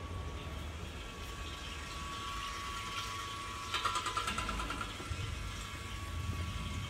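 Commercial gas-fired popcorn machine running while its kettle preheats: the electric stirrer motor turns the agitator in the stainless kettle over the gas burner, giving a steady low rumble with a thin steady whine. About four seconds in there is a short burst of rapid metallic ticking.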